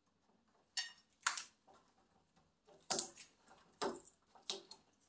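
Blue-and-gold macaw biting and crunching at the wooden branch of its new stand with its beak: about five sharp, separate cracks spread across a few seconds.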